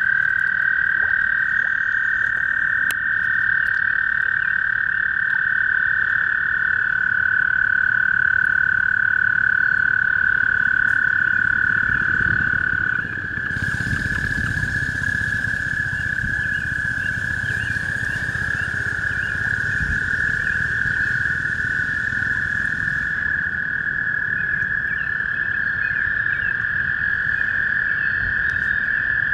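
Male toad giving a long, unbroken high trill, an advertisement call, held on one pitch; about halfway through the trill shifts slightly lower and carries on. A faint background hiss comes and goes for about ten seconds in the middle.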